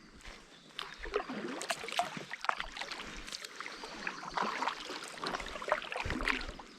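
Kayak paddle strokes dipping and splashing in river water, a stroke every second and a half or so, with small drips and splashes between.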